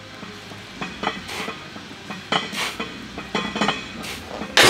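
Loaded barbell on a bench press, its plates clinking in a few short clatters while being pressed, then a louder metallic clank near the end as the bar goes back into the rack.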